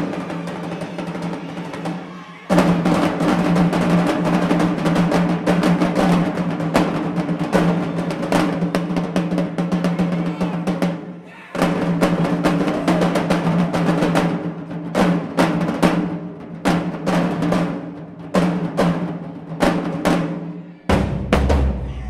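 Marching band drumline playing a cadence, with bass drums struck with mallets and fast rolls. The playing stops briefly about two and a half seconds in and again about eleven seconds in. From about fourteen seconds on it turns to spaced-out accented hits.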